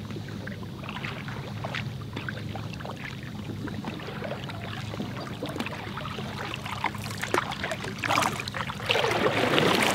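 Canoe paddles dipping and splashing in calm lake water as the canoe approaches, with small knocks and drips and a steady low hum underneath; near the end come two louder swishes of water as it pulls in close.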